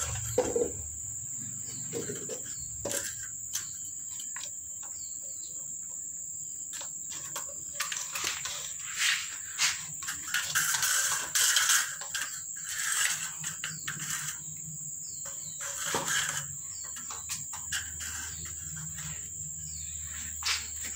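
Kittens batting a plastic cup lid and a paper cup about on a tiled floor: scattered light clicks, taps and scrapes, busiest in the middle, over a steady high-pitched insect drone.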